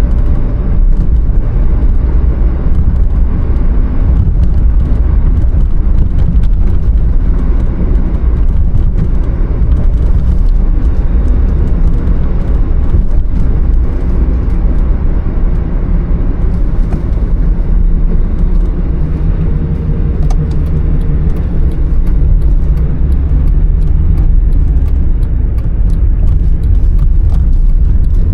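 Mazda MX-5 (NA Roadster) on the move: a loud, steady low rumble of engine and road noise.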